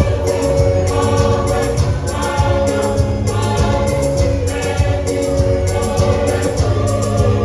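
Junior choir singing a gospel song in harmony over a steady percussive beat and low sustained bass notes.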